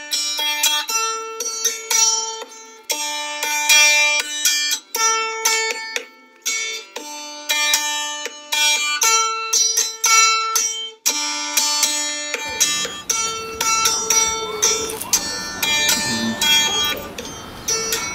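Background music: a run of short picked notes on a plucked string instrument. About two-thirds of the way through, a low, even background noise comes in beneath it.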